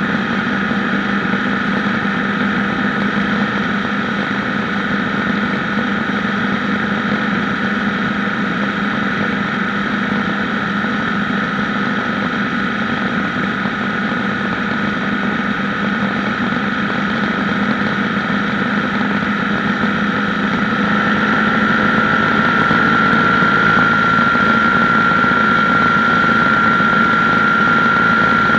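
BMW R1150GS's flat-twin boxer engine running steadily, with a steady high whine over the engine note; it grows somewhat louder about three quarters of the way through.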